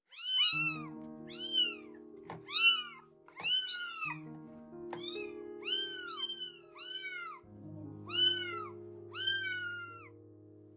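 Young kitten mewing over and over: high, thin cries that each rise and then fall, one to two a second.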